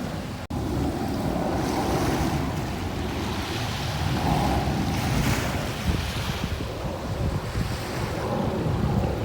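Gentle sea waves washing onto a beach, with wind buffeting the microphone. The sound cuts out for a split second about half a second in.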